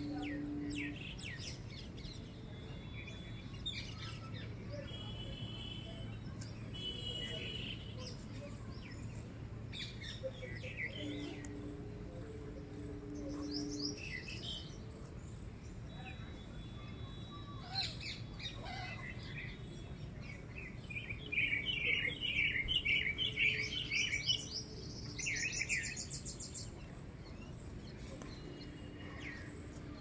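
Several birds chirping and calling in a rural open-air setting, with a loud run of rapid twittering a little after two-thirds of the way through. A faint steady low tone comes and goes underneath.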